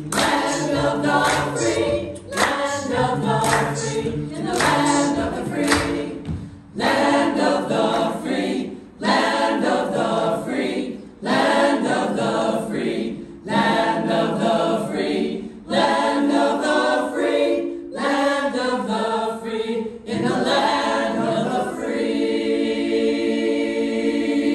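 Mixed choir of men's and women's voices singing a cappella in full chords, in phrases broken by short breaths every two seconds or so. Near the end they hold one long final chord, which cuts off at the very end.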